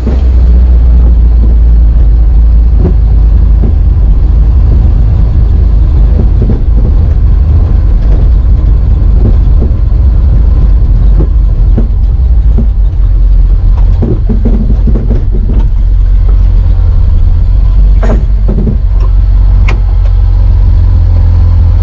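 Car driving on the road: a loud, steady low rumble of engine and road noise, with a few short knocks and bumps.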